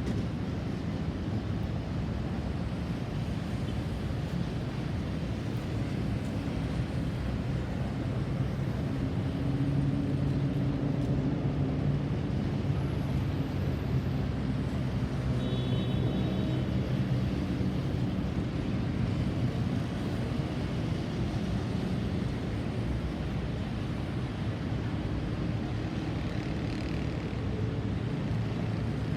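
Steady road-traffic rumble with a vehicle engine's hum that swells in the middle and fades again; no siren.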